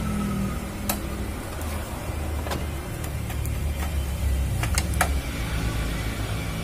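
Canon iR photocopier running with a steady low hum while hands handle its side panel, giving a few sharp clicks and knocks, three in quick succession about five seconds in.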